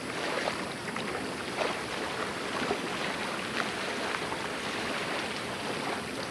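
Steady wash of moving water, with faint, short clicks scattered through it.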